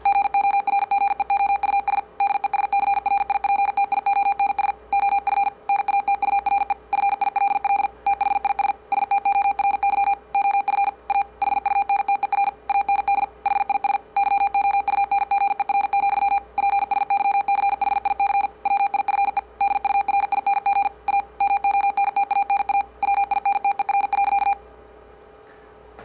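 Morse code text at 50 words per minute played through a speaker as a square-wave tone: a very fast stream of dots and dashes on one steady pitch, with short gaps between words. It stops a little before the end.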